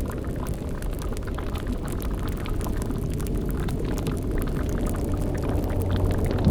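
Layered spooky ambience: a steady low rumbling drone with a dense crackling, bubbling layer over it, like a boiling cauldron or fire. The low hum swells slightly near the end.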